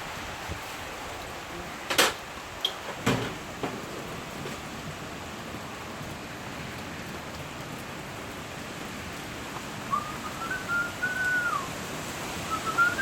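Steady hiss of heavy rain falling, with two sharp knocks about two and three seconds in. Near the end come two whistled notes, each sliding up, holding and then dropping off.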